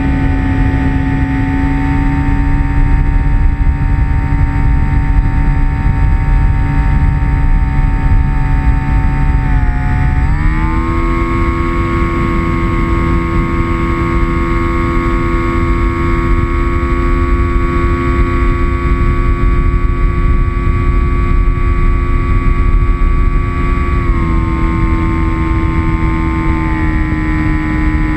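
RC model airplane's motor and propeller running in flight, heard from the onboard camera: a steady droning whine that steps up in pitch with a throttle increase about ten seconds in, then drops slightly twice near the end, over a steady rushing noise.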